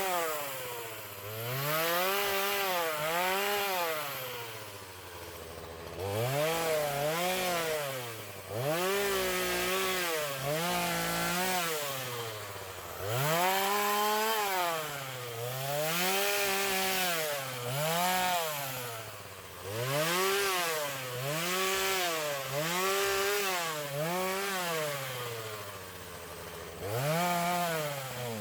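A saw working in repeated strokes, its pitch rising and falling with each stroke about once a second, with short pauses every few seconds.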